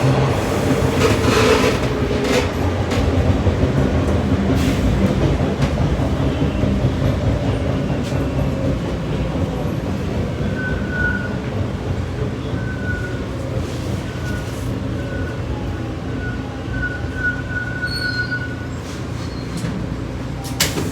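TTC T1 subway train running, heard from inside the car: a steady rumble of wheels on rail with a few clicks. From about halfway in, a high wheel squeal sounds on and off for several seconds.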